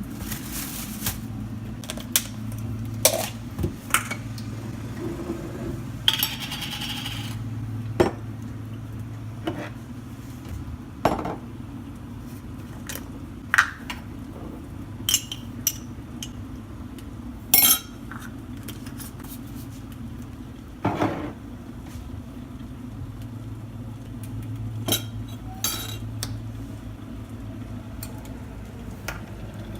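Crockery and cutlery clinking and tapping in a string of separate sharp knocks, with a longer scrape about six seconds in, over the steady low hum of an electric kettle heating up.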